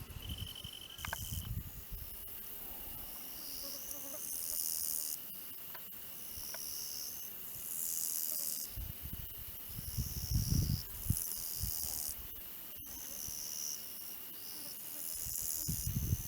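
Grasshoppers chirping in hissy bursts of about a second, every few seconds, over a steady high insect trill, with low gusts of wind on the microphone now and then.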